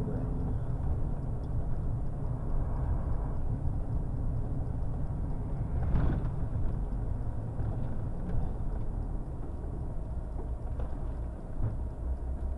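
A truck's diesel engine and road noise heard from inside the cab: a steady low rumble, with a brief louder thump about six seconds in.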